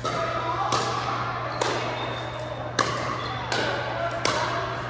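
Pickleball paddles striking a hard plastic pickleball in a fast rally: about six sharp pocks, under a second apart, each ringing on in a large hall.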